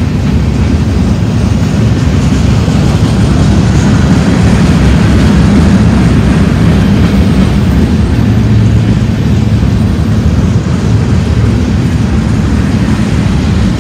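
Hopper cars of a manifest freight train rolling past: a loud, steady rumble of steel wheels on the rails.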